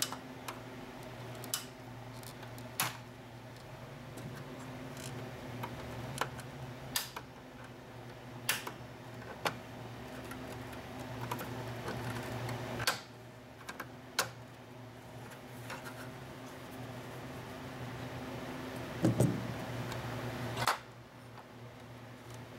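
Scattered sharp plastic clicks and knocks as the back cover of a GM instrument cluster is pried loose and its latch tabs snap free, with one heavier knock near the end. A steady low hum runs underneath.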